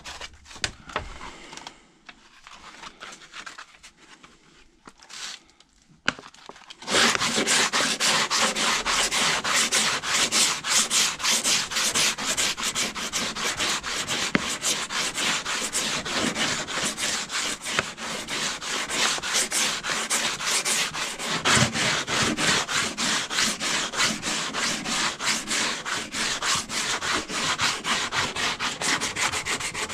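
Sanding on a car fender, rubbed quickly back and forth by hand. Faint scraping for the first several seconds, then loud, steady, rapid sanding strokes from about seven seconds in.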